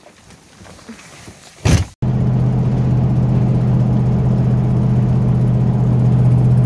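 A brief thump, then a steady loud drone inside the cab of a 2008 Dodge Ram 2500 Hemi pickup cruising on the road while towing a gooseneck trailer: its engine and road noise.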